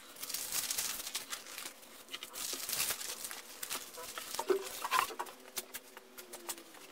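Large sheets of paper rustling and crinkling as they are gathered up and folded, followed by a few scattered light clicks and knocks.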